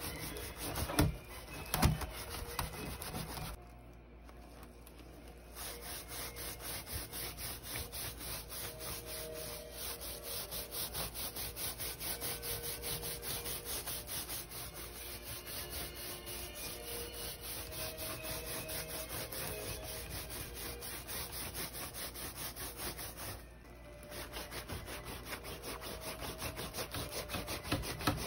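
A hand rubbing hard back and forth over a woven wild-grape-vine (yamabudo) basket bag, working Japan wax (mokurō) into the joints of the weave. The quick, even scraping strokes run on, with two short knocks in the first couple of seconds and brief stops about four seconds in and again near the end.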